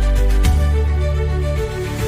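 Background music: sustained bass notes under short melodic notes and a light ticking beat.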